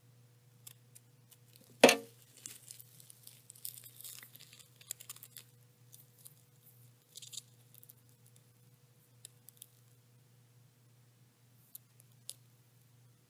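A tarantula (Pterinochilus lugardi) strikes a prey insect, with one sharp knock about two seconds in. Then a few seconds of crackling and rustling of silk and struggling prey, with a short burst later and two small clicks near the end.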